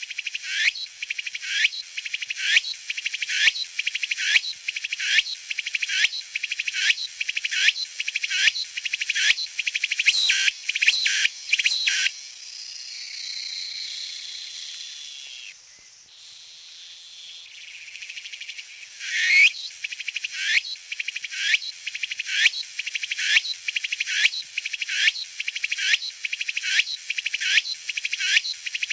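Walker's cicada (Meimuna opalifera) singing: a high-pitched rasping phrase repeated about twice a second. About twelve seconds in the song turns into a steady buzz that cuts off suddenly a few seconds later, then builds back up into the repeated phrases.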